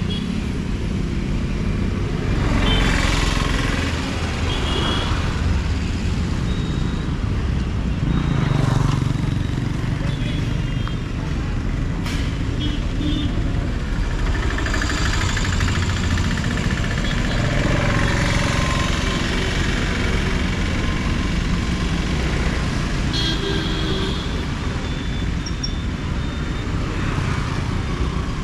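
Traffic on a busy city road: a steady stream of vehicles passing, the noise swelling as each goes by, with a few short high-pitched toots here and there.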